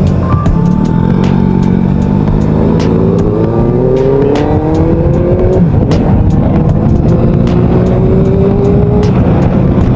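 Honda ADV150 single-cylinder scooter engine under way, its pitch rising steadily for a few seconds as it accelerates, dropping sharply about halfway through, then climbing again.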